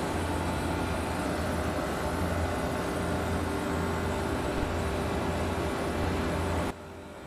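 Steady industrial noise: a constant low machinery hum with a few steady tones under an even hiss. It drops suddenly to a quieter hiss near the end.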